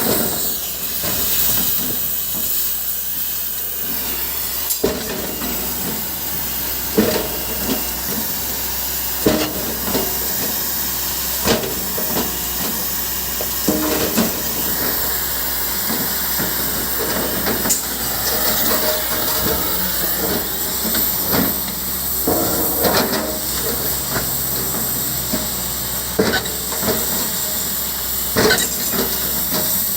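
JCB backhoe loader working: a steady noisy engine hiss with irregular knocks and clunks every couple of seconds.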